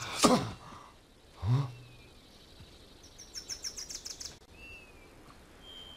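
Forest ambience with birds chirping in quick high runs and giving short falling whistled calls. A loud thump comes at the very start, and a short low sound follows about a second and a half in.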